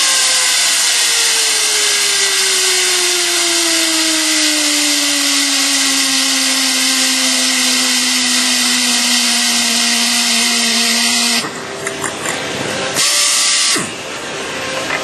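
RAD 50 air-driven torque wrench running on a large nut. Its air motor hisses, with a whine that falls steadily in pitch as the tool slows. It cuts off abruptly about eleven seconds in, then runs again briefly a little before the end.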